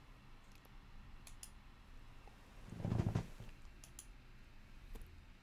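A few faint, scattered clicks, with a short muffled thump about three seconds in that is the loudest sound.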